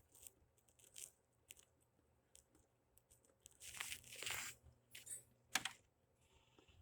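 Deer chewing and crunching corn: scattered faint crunches and tearing sounds, with a louder rustling crunch about four seconds in.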